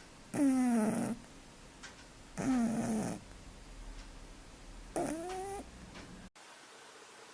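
A cat meowing three times, each call under a second: the first two fall in pitch and the third rises.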